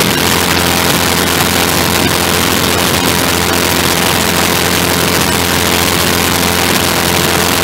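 Engine and propeller of the MudSkipper ground-effect wing craft running steadily in cruising flight, a constant engine hum under a loud rush of air across the microphone.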